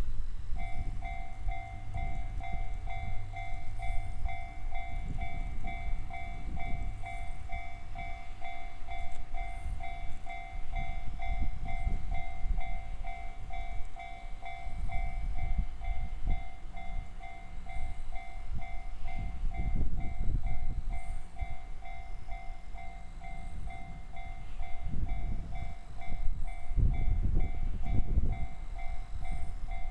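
Japanese railway level crossing alarm (the JR standard electronic warning tone) starts less than a second in and dings in a steady, even repeating beat, signalling that a train is approaching. An uneven low rumble runs beneath it.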